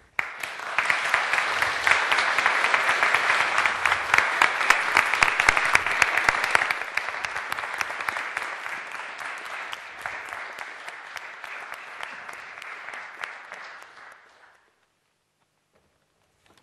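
Audience applauding, many hands clapping. It starts abruptly, is loudest for the first several seconds, then thins and fades out about two seconds before the end.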